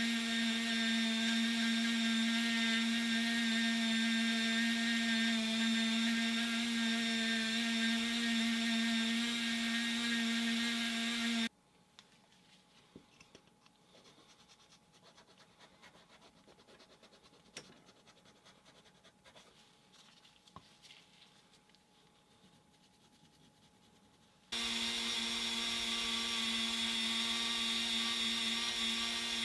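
Handheld rotary tool running steadily with a high whine, grinding hardened modelling filler on a tiny diecast bumper. It cuts off about eleven seconds in, leaving only faint scrapes and ticks of hand carving, then starts again about twenty-five seconds in and runs on steadily.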